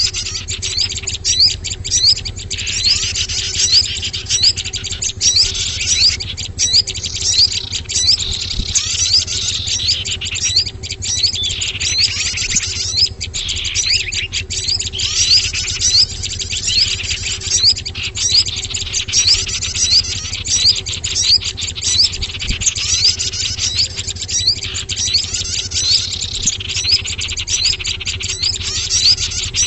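Lure recording of small songbirds calling: dense, high-pitched chirps and short rising notes, several a second, without a break, over a faint steady hum. It is played to draw small wild birds in for catching.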